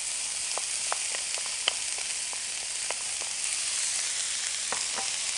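Diced bell peppers and onions sizzling in hot oil in a skillet, a steady hiss with scattered small pops and crackles.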